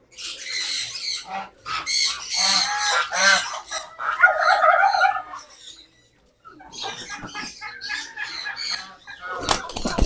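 Birds flapping their wings in fluttery bursts, with a few squawking fowl calls in the middle and a brief lull after them. A few sharp knocks near the end.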